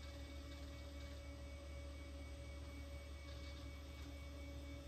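Macintosh IIvx running: a steady low hum from its cooling fan and spinning hard drive, with a thin, faint whine above it.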